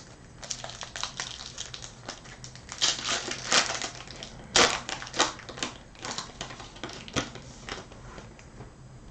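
Topps Chrome trading cards and their packaging being handled: a run of small clicks and rustling slides, with louder scraping swishes about three seconds in and again just past four and a half seconds.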